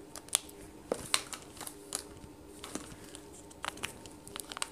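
Scattered short clicks and crinkling rustles, irregular and faint, over a faint steady hum.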